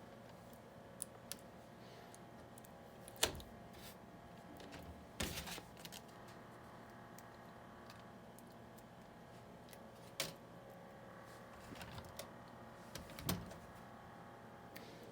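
Scattered light clicks and taps of small plastic parts and a sticker sheet being handled, a few seconds apart, with a short cluster around five seconds in, over a faint steady hum.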